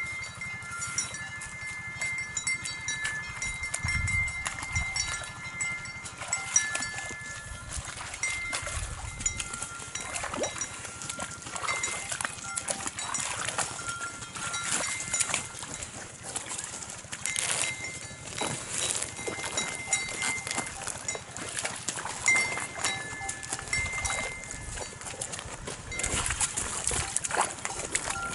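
Nguni cattle wading into the shallow edge of a lake to drink: scattered knocks and splashes of hooves in the water, with heavier sloshing near the end, over repeated high ringing notes.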